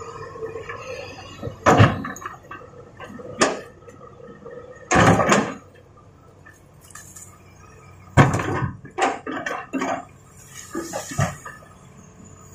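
Hard toy pieces and stones clattering and knocking together in a handful of separate bursts: a toy excavator working rocks by hand. The loudest knocks come about two seconds in, around five seconds in and around eight seconds in, with a few lighter taps between.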